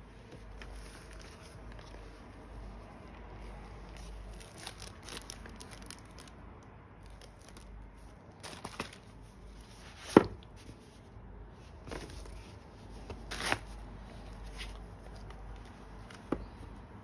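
Rustling and handling of packaging: a paper certificate in a clear plastic sleeve and cardboard watch boxes being picked up, shifted and slid apart, with scattered taps and knocks. The loudest, a sharp knock, comes a little past the middle, with a few smaller ones later.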